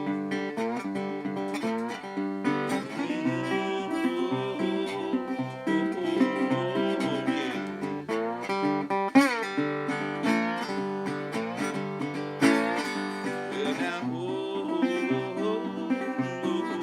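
Acoustic slide guitar playing a blues, with notes gliding up into pitch over a repeating picked bass line.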